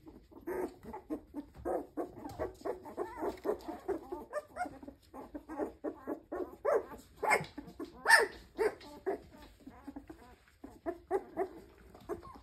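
A litter of young standard poodle puppies making a run of short whimpers and little yips, several a second.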